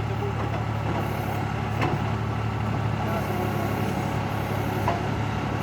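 John Deere tractor's diesel engine running steadily, with a couple of short knocks, one about two seconds in and one near the end.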